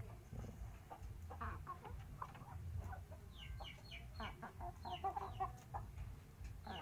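Chickens clucking softly, with a quick run of short, high, falling chirps starting about three seconds in, over a low rumble.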